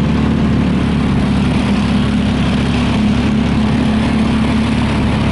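A vehicle engine running steadily at an even speed while riding along.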